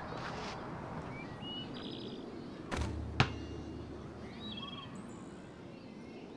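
Birds chirping in short stepped whistles over a steady outdoor hiss. About three seconds in, a basketball strikes the hoop: a dull thump, then half a second later a sharp knock, the loudest sound.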